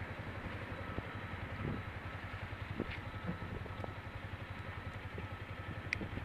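Motorcycle engine idling steadily, with a couple of light clicks.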